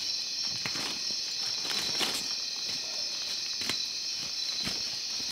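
Steady high-pitched chorus of night insects in tropical forest, with irregular footsteps on the forest floor about once a second.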